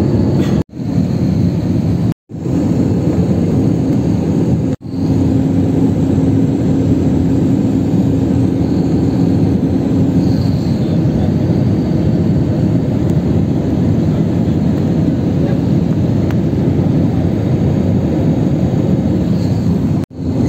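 Steady jet engine and airflow noise inside an airliner cabin beside the wing. It is broken by three brief dropouts in the first five seconds and one near the end.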